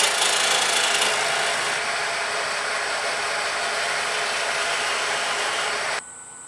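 A turning tool peels the hard skin off a kohlrabi spinning between centres on a wood lathe, making a steady, dense cutting noise. The noise stops abruptly about six seconds in, leaving only the quieter sound of the lathe running.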